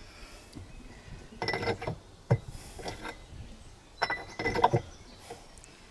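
Metal tools and engine parts clinking and rattling in two short bursts, with one sharp knock between them.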